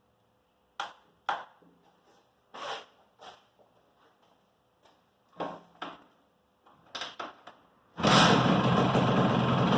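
A few scattered knocks and clicks, then about eight seconds in the restored Honda MB 100's two-stroke engine suddenly starts running steadily and loudly.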